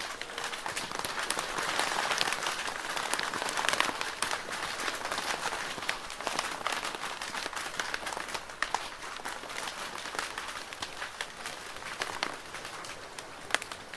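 Rain falling on a plastic roof: a dense, steady patter of many small drop impacts, with the odd louder drip standing out, easing slightly in the second half.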